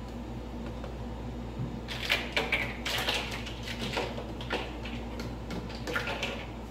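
Hands scrubbing and knocking about inside the stainless-steel storage bin of a commercial ice maker during cleaning: a run of irregular scrapes, clacks and rubbing sounds starting about two seconds in, over a steady low hum.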